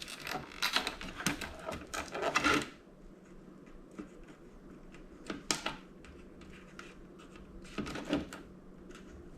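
Wire cutters snipping the wires inside a flat-screen TV: a quick run of clicks and snaps over the first couple of seconds, then a few single clicks later on.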